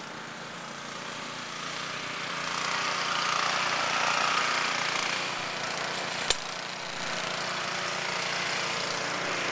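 Snowblower engine running steadily, getting louder a few seconds in, with one sharp click partway through.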